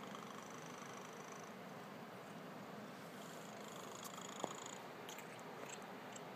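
Domestic cat snoring faintly and steadily in its sleep. A single short tick about four and a half seconds in.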